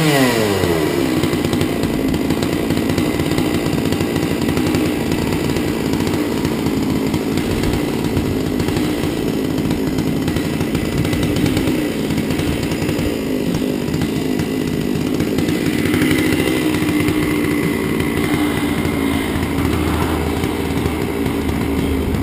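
Modified 99cc MS660-clone chainsaw on an Alaskan-style chainsaw mill: the engine drops from high revs right at the start, then runs steadily at lower speed.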